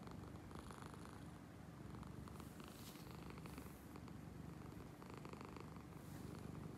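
A domestic cat's loud, rumbling motorboat purr, swelling with each breath about every two seconds. The owner wonders whether it is purring or snoring while awake.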